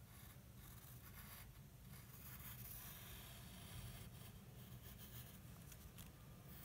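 Faint scratching of a drawing tool tracing lines on paper, in strokes with short breaks, over a low steady hum.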